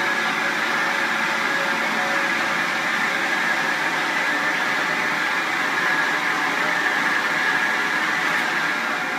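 Richmond hydraulic elevator power unit during the car's descent: oil rushing back through the lowering valve into the reservoir tank, a steady loud hiss. It dies away near the end as the car comes to rest.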